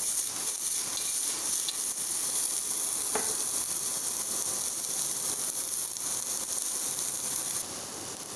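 Broccoli, pear and long beans stir-frying in hot olive oil in a frying pan, a steady sizzle as the pan is tossed. The sizzle quietens near the end.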